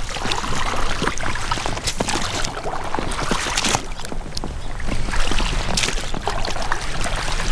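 Oars of a small inflatable raft rowing through lake water: repeated splashes and swishes of the blades, with wind rumbling on the microphone.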